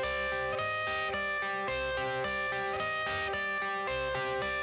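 Background music: a song's guitar intro, with held notes changing in a steady rhythm about twice a second.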